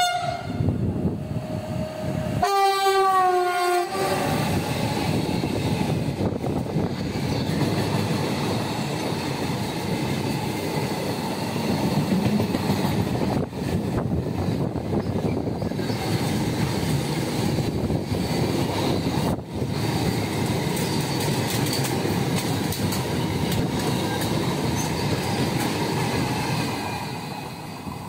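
Renfe Series 253 (Bombardier TRAXX) electric freight locomotive sounding its horn: a short blast at the start, then a longer one about two and a half seconds in. A long freight train of container and swap-body wagons then runs steadily past close by, its wheels on the rails, fading near the end.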